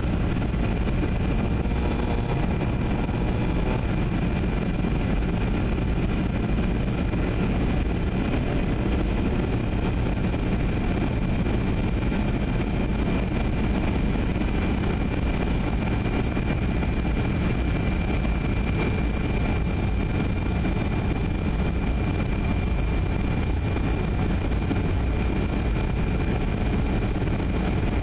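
Steady cabin noise inside a Boeing 737-200 on landing approach: the drone of its Pratt & Whitney JT8D turbofan engines and rushing air, with a thin steady high whine above it.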